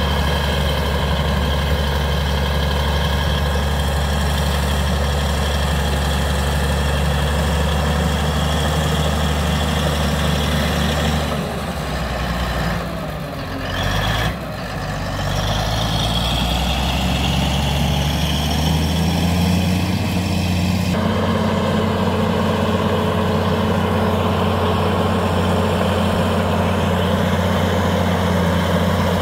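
Heavy diesel engine of a snow-clearing earthmover running steadily. It drops off briefly about twelve seconds in, and its note changes about twenty-one seconds in.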